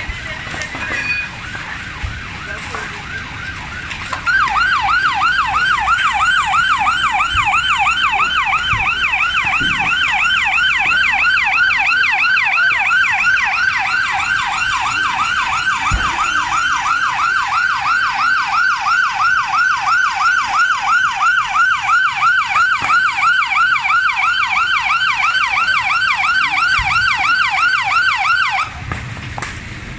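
Emergency vehicle siren in a fast rising-and-falling yelp, starting about four seconds in and cutting off suddenly near the end.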